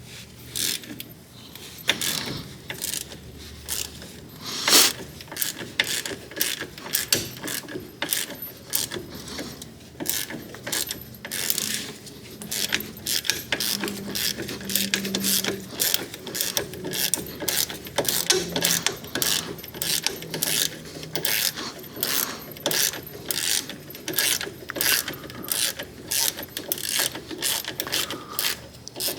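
Hand ratchet wrench clicking as it is worked back and forth on a bolt: a long run of sharp clicks, a few a second, with one louder clack about five seconds in.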